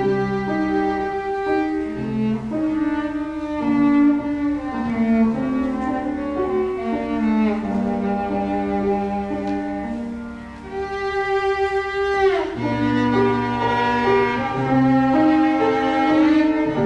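Cello played with the bow, with piano accompaniment: a melody of long held notes that softens briefly about ten seconds in, then picks up again.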